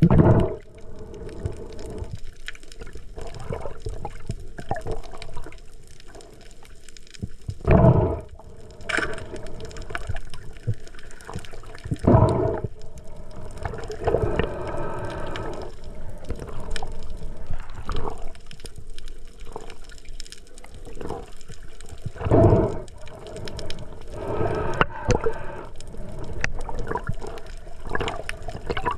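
Water heard through a submerged or splashed camera housing: a muffled, continuous gurgling and sloshing, with louder rushes of water about 8, 12 and 22 seconds in.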